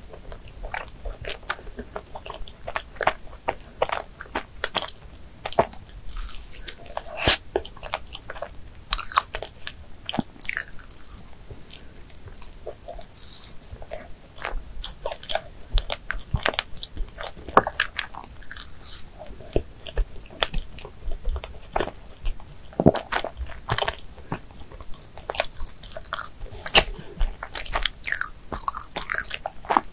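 Close-miked chewing of a mouthful of soft Krispy Kreme doughnut with whipped cream, with many short sharp mouth clicks.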